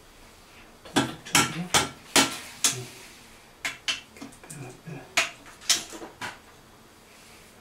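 Metal pliers clicking and scraping against the broken-off drain tail under a washbasin as it is gripped and worked out. The sound is a quick, uneven series of sharp clicks and knocks that stops about six seconds in.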